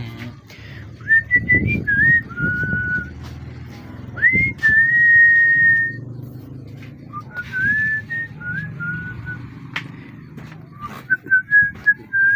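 A person whistling a slow tune in held notes with short slides between them. A few light clicks and taps from a small screwdriver driving the screws into a phone's frame come through.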